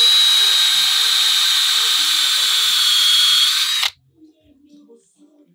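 Cordless drill boring into a sailboat's keel: a steady high whine for about four seconds that cuts off suddenly. The hole is drilled to find seawater trapped between the keel's fiberglass and its lead ballast.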